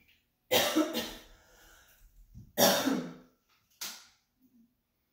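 A woman coughing: four coughs in about three and a half seconds, two close together, one after a pause, and a shorter, weaker one at the end.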